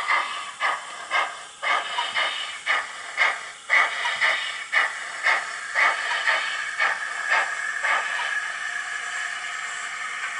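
Digital sound decoder in a model NER Class O steam locomotive playing exhaust chuffs at about two beats a second as the engine moves off. About eight seconds in the beats die away into a steady steam hiss.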